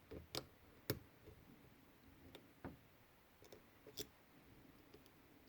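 Faint, irregular clicks, about five of them, from a lock pick working the key pins inside a Medeco padlock's cylinder.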